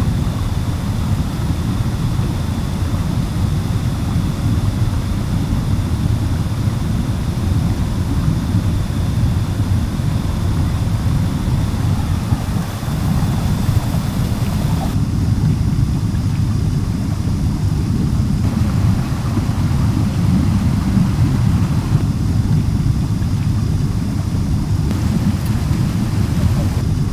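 Steady, low roar of a rushing river and waterfall pouring over rocks.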